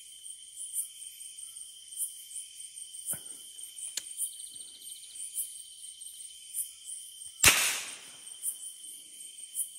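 Night insects chirping, a rapid high pulsing trill over a steady buzz, with a couple of faint clicks. About three-quarters of the way through comes a single sharp crack followed by a short fading hiss, the loudest sound.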